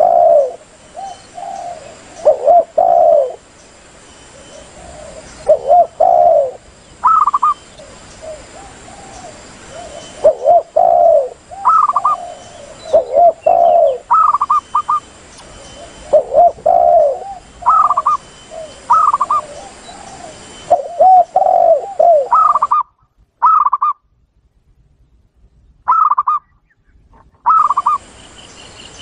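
Spotted doves and zebra doves cooing in a recording played as a hunting lure: repeated low, rolling coo phrases alternate with shorter, higher notes, phrase after phrase, over a faint steady background hiss.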